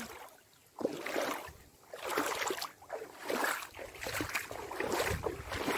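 Bare feet wading through a shallow rainwater puddle: a steady run of splashing, sloshing steps, starting just under a second in.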